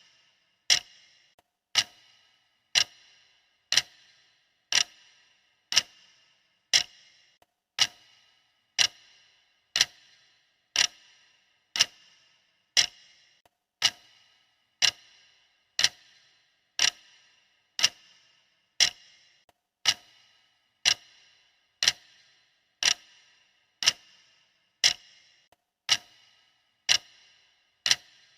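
Clock ticking sound effect: a sharp tick once a second, each with a brief ring, steady and unchanging.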